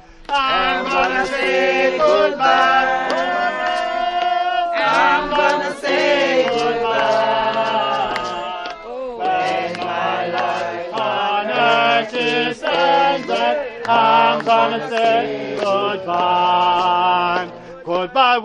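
A crowd singing a gospel hymn together in phrases, several voices without instruments.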